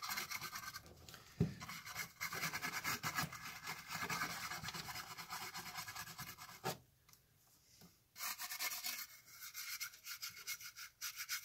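Small brush scrubbing a plastic model boxcar shell softened in paint stripper, in quick back-and-forth strokes, with a couple of light knocks. The scrubbing stops for about a second and a half past the middle, then starts again.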